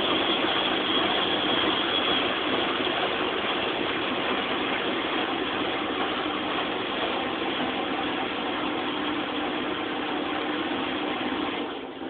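1999 Ariston AL1056TX washing machine running its final spin: a steady whir and hum from the drum and motor. A high whine fades out in the first couple of seconds, and the sound eases gradually, dropping off noticeably near the end.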